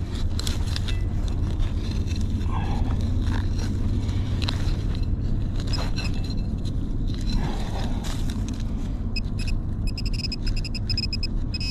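Scraping and crackling as gloved hands tear grass and roots out of a small dug hole in soil, over a steady low rumble. From about nine seconds in, a metal-detecting pinpointer beeps in rapid, broken pulses as it is probed into the hole.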